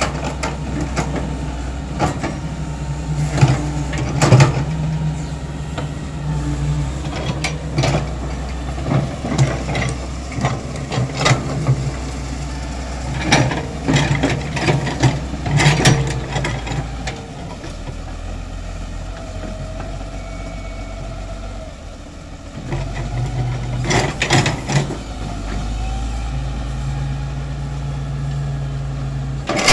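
Hitachi wheeled excavator's diesel engine running under load, with repeated clanks and knocks from the bucket and arm as it digs and dumps soil. The engine settles lower for several seconds past the middle, then picks up again with more knocks.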